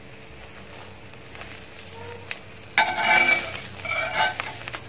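An omelette frying in oil in an iron pan, with a faint steady sizzle. About three seconds in comes a louder spell of a steel spatula scraping and pushing against the pan as the omelette is rolled.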